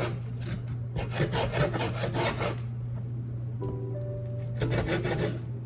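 Kitchen knife sawing back and forth through raw chicken on a cutting board, in two runs of quick strokes: one about a second in, the other near the end.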